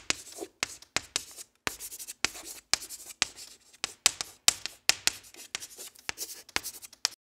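Writing sound effect: a rapid series of short, scratchy handwriting strokes that stop abruptly near the end.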